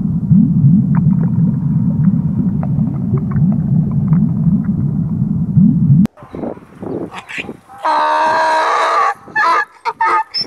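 Low underwater bubbling and gurgling, full of short rising swirls, for about six seconds until it cuts off. Then a donkey brays: one long pitched hee-haw, followed by quicker rhythmic in-and-out brays.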